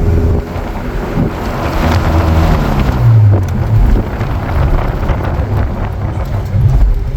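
1997 Honda Civic's swapped-in D16Y7 four-cylinder engine pulling hard as the car accelerates down the road, the engine note rising about three seconds in, with wind rushing over the microphone.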